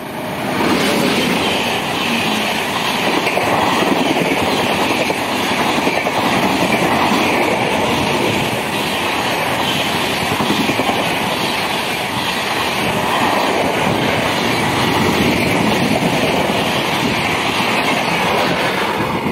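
Express train of electric locomotive and LHB coaches running through a station at about 120 km/h: a loud rush of wheels on rail with clickety-clack over the joints. It comes up sharply about half a second in as the locomotive reaches the platform, then swells and eases in a slow rhythm as the coaches go by.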